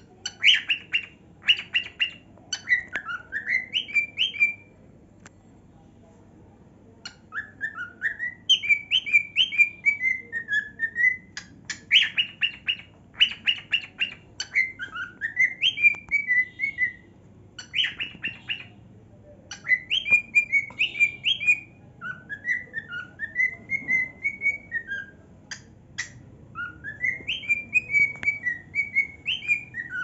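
Cockatiel singing: whistled phrases that rise and fall in pitch, broken up by bursts of quick chirps, with a pause of about two seconds near five seconds in.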